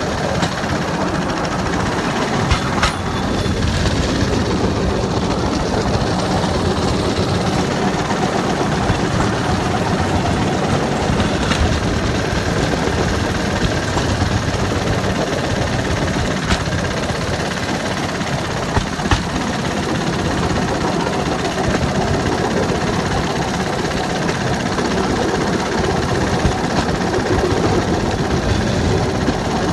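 Bamboo train (norry) running along the rails: a steady engine and rattling rumble from the moving platform and wheels, broken by a few sharp clacks.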